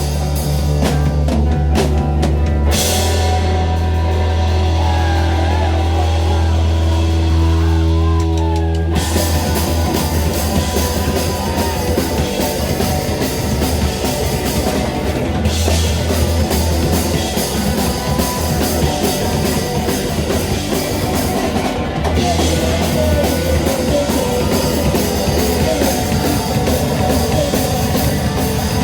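A rock band playing loudly, with the drum kit prominent. Held notes ring out briefly, then the full band with drums comes in about nine seconds in and plays on.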